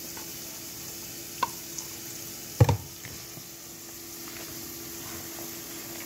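Spoon stirring mayonnaise through shredded cabbage and carrot for coleslaw, with a soft squishing. A few light clicks, then one louder knock about two and a half seconds in, over a steady hiss and faint hum.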